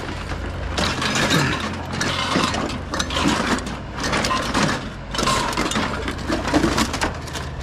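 A steady low engine hum, as of a vehicle idling, under irregular clattering and knocking as pieces of scrap are handled and moved.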